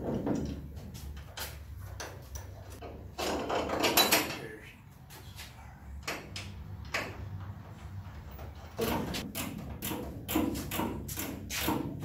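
Scattered metal clicks, knocks and clunks of suspension parts and hardware being handled and fitted to the underside of a car body, with a longer, louder rattle about three to four seconds in.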